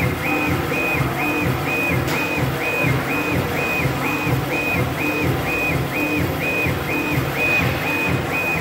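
CNC laser engraver's gantry stepper motors whining as the laser head rasters back and forth across a stone plate, a little over two passes a second. Each pass is a steady high whine that ramps up and down at the reversals, with a low thud in step.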